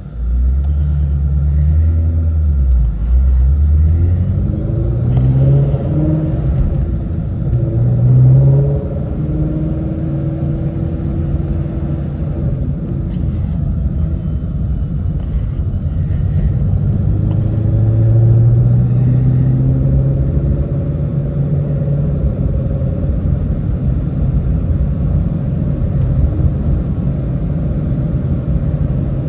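Ford Shelby GT350's 5.2-litre flat-plane-crank V8 running under way, heard from inside the cabin as a steady low rumble. Its pitch climbs and drops several times as the car accelerates and eases off.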